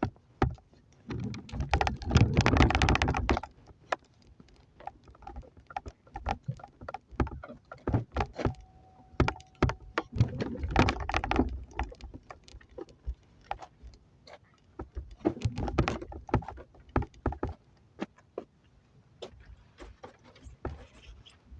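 Irregular clicks, knocks and rattles of objects being handled. A louder stretch of noisy rustling comes about a second in and lasts about two seconds.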